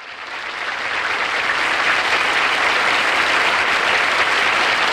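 Studio audience applauding, swelling up over the first couple of seconds and then holding steady.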